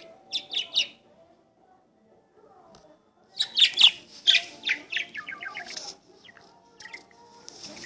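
Pet budgerigar chirping and warbling: three quick high chirps at the start, then a longer run of rapid chirps and chatter from about three and a half seconds in, with a few more chirps near the end.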